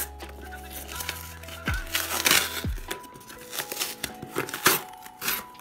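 Corrugated cardboard book mailer being pried open and its flaps pulled back: several rustling, scraping strokes, the loudest a little past two seconds in and again near the end. Background music plays throughout.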